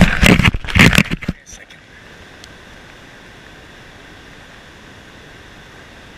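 Loud, close rubbing and knocking of hands handling a GoPro camera for about the first second, then a steady, even rush of waterfall water.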